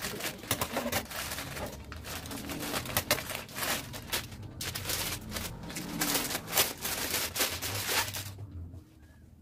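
Plastic packaging crinkling and rustling: a poly mailer bag is cut open with scissors, and a plastic-wrapped item is pulled out and unwrapped, in a run of crackles and small clicks. It goes quiet about eight seconds in.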